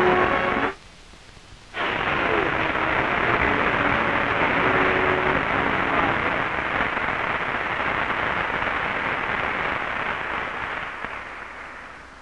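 Theatre audience applauding steadily. The applause breaks off for about a second near the start, then fades out near the end.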